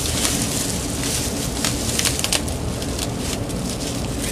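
Plastic bubble wrap crinkling and crackling as it is pulled off and unwrapped by hand, with many irregular sharp crackles over a steady low background hum.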